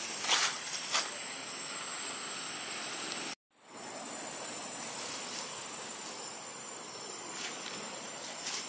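Steady high-pitched outdoor hiss, with two short clicks in the first second. The sound cuts out completely a little over three seconds in and fades back up within about half a second.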